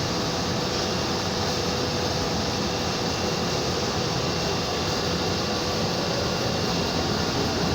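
2-ton-per-hour dual-fuel steam boiler running: a steady, even rushing noise with two faint steady tones, one middling and one high.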